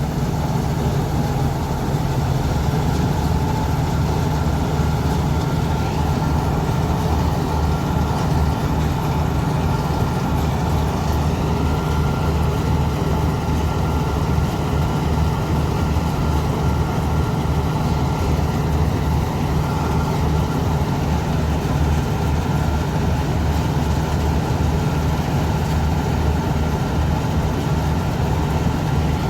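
Diesel engine of a John Deere 5310 combine harvester running steadily at working speed, a constant low hum with a faint, steady high whine above it.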